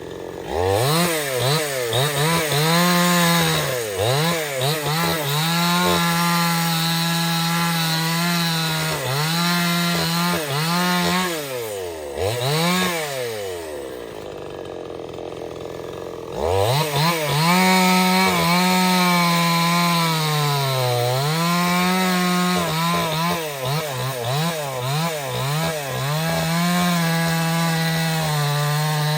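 Stihl 070 two-stroke chainsaw running at high revs, its pitch dipping and recovering again and again as it is loaded in the cut. It drops to idle about 14 s in and is revved back up about two seconds later.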